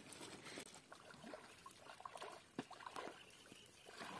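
Faint trickling and dripping of water from a paddle working the water, with a few soft clicks.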